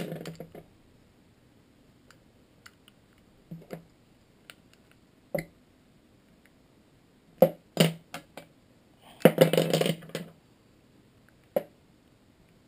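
Hand handling of Hi-Capa pistol parts during disassembly of the lower: scattered sharp clicks and knocks of small parts, the loudest pair about seven and a half seconds in, and a brief scraping rattle about two-thirds of the way through.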